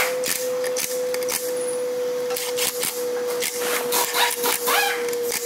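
Cordless impact wrench hammering in short bursts as it drives bolts into a Toyota 2AZ-FE engine block, over a steady high hum.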